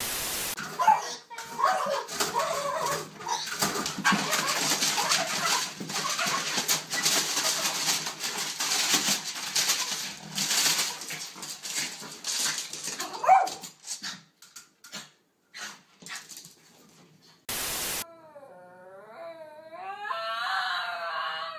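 A short burst of static hiss, then a dog whining amid scuffling and clattering. About 17 seconds in comes another burst of static, and then a small long-haired dog howls in a long, wavering pitch.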